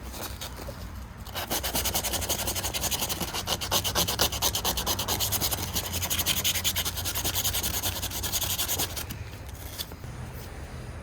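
Sandpaper rubbed by hand on a Kutmaster pocketknife in quick, even back-and-forth strokes. The strokes start about a second and a half in and stop about two seconds before the end.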